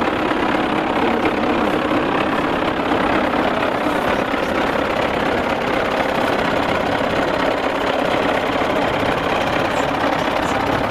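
Wheeled farm tractor's diesel engine running steadily close by, working its front loader as it lifts a load of straw.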